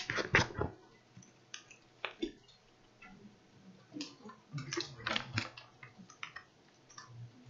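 Scattered clicks and taps of computer keys and mouse buttons, coming in irregular clusters, loudest about half a second in and again around five seconds in.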